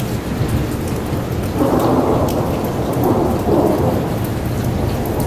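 Thunder rumbling for about two seconds, starting a little after a second and a half in, over steady rain.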